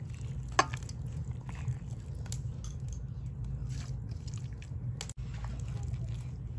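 Raw beef chunks being placed and pressed by hand into an aluminium pressure cooker pot: soft wet squishes and light knocks of meat against the pot, with a sharp click about half a second in, over a steady low hum.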